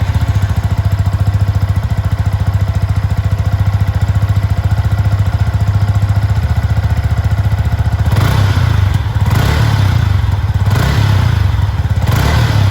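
Yamaha XSR 155's single-cylinder engine through its stock exhaust, idling steadily, then revved in a few short blips over the last few seconds.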